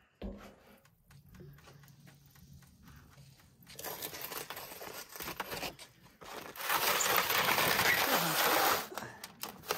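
Crunching, crinkling handling noise in two long stretches, the second louder, after a few quiet seconds.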